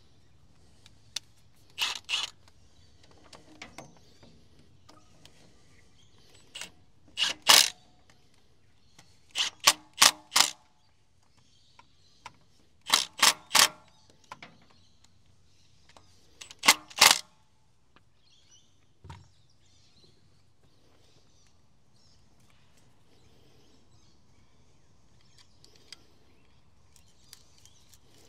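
Cordless impact wrench run in five short bursts, each under a second, tightening hose clamps on the engine's heat exchanger hoses.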